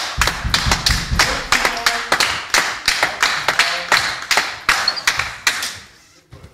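A small group of people clapping, with single claps heard apart from each other, several a second, fading out near the end.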